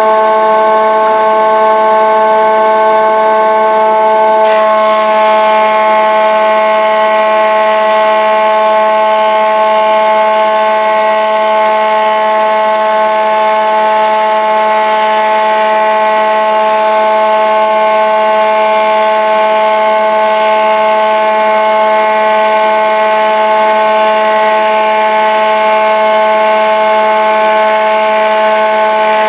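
1948 Barton wood planer running while it planes Douglas fir boards: a loud, steady whine made of several pitches. About four and a half seconds in the sound turns harsher and hissier and stays that way.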